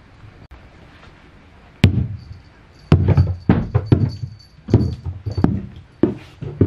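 Kitten playing with a rubber bouncy ball on a wooden floor: one sharp knock about two seconds in, then a quick, irregular run of thuds from its paws and the ball hitting the boards.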